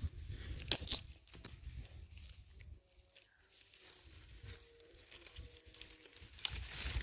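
Crisp crunching bites and chewing of an apple, the sharpest crunches in the first second or so, with low handling rumble growing louder near the end.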